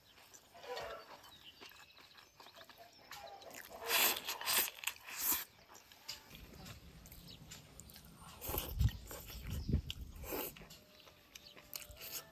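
Eating sounds: irregular crunching and chewing in short bursts, with a few dull low thuds about nine to ten seconds in.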